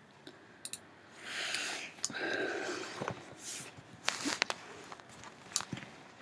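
Scattered sharp clicks and soft rustling close to the microphone, with two brief breathy swells early on.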